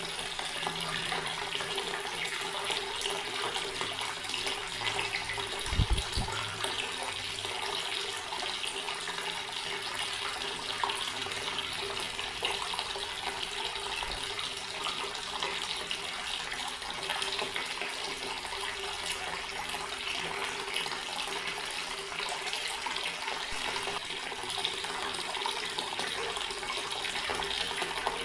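Garden water tap running steadily, the stream splashing in an even rush. A short low thump about six seconds in.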